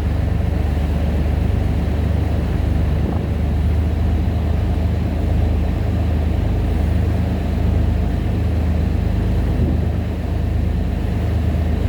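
Shuttle boat's engine running steadily, a low even drone heard on board.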